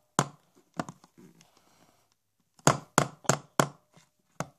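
A hammer striking a camera again and again in sharp knocks. Two blows, a pause of about a second and a half, then a quick run of strikes at about three a second.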